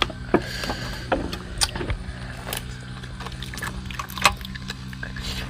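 Close-up eating sounds: chewing and crunching of grilled shrimp, with a handful of short sharp cracks, over a steady low hum.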